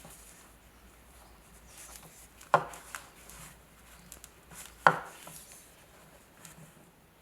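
Two sharp knocks about two and a half seconds apart, with lighter clicks and rubbing between them, as from a knife or tool handled against a hard surface.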